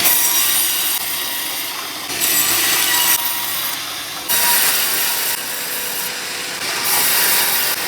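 Sawmill blade cutting through a teak log: a dense, hissing rasp that swells louder four times, for about a second each time.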